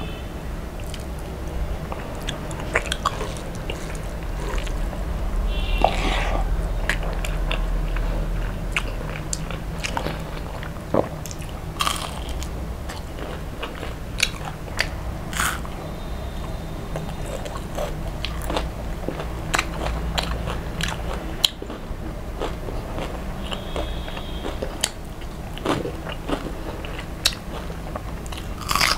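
A person chewing and biting into crispy deep-fried rohu fish and rice, with irregular crisp crunches and clicks.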